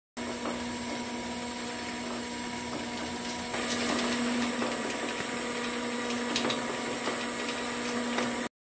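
Homemade concrete 3D printer running: a steady machine hum with a constant tone, getting a little louder about three and a half seconds in.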